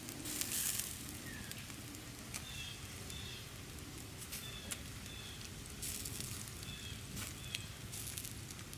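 Campfire crackling, with scattered sharp snaps and brief hisses. Short high chirps come in pairs several times.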